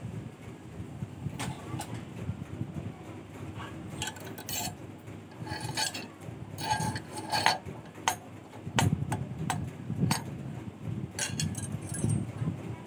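Steel wire clicking and clinking against a steel rod clamped in a vise as a torsion spring is wound by hand, in light, irregular metallic ticks.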